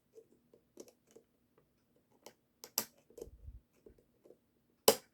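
Small metal tools clicking and scraping against a toy's plastic gear mechanism as a small retaining clip is picked at, a scatter of sharp irregular clicks with a sharper snap just before the end and a soft low thump about three seconds in.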